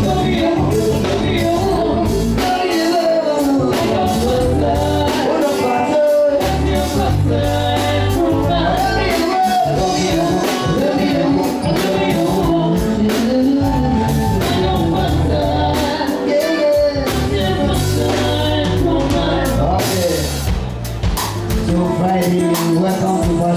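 Band music with a singer over a steady drum beat and bass.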